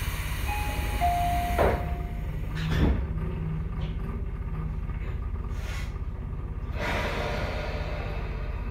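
Tobu 10000-series train car standing at a station: the pneumatic sliding doors hiss and thud, with a short two-note tone from the door signal early on. A steady low equipment hum from the stationary train runs underneath.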